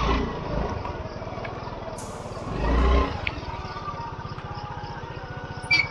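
Scooter engine idling steadily, with a brief low rumble swelling about two and a half seconds in.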